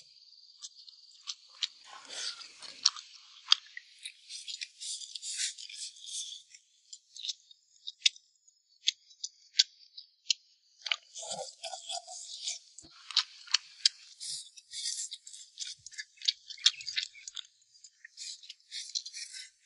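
Close-up eating sounds: a person chewing mouthfuls of rice and stir-fried pork, with many small irregular wet clicks and smacks.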